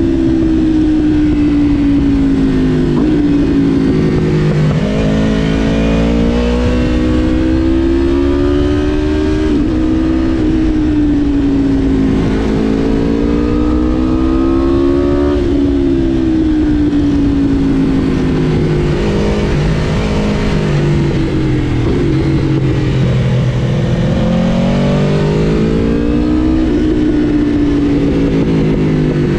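Aprilia RSV4 Factory's V4 engine under way, its pitch climbing and falling several times over a few seconds each as the throttle is opened and closed, over a steady low rush.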